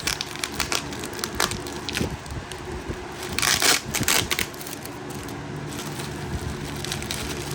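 Bubble wrap being pulled off and crinkled by hand: a run of sharp crackles, with a louder rustling burst about three and a half seconds in.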